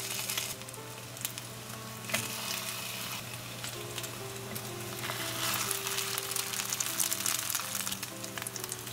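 Egg-dipped bread roll-ups sizzling in olive oil in a frying pan, with a few light clicks.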